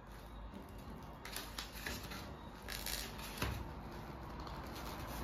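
Polystyrene foam packaging being handled and prised apart by hand: faint scrapes and rubs, with a soft knock about three and a half seconds in.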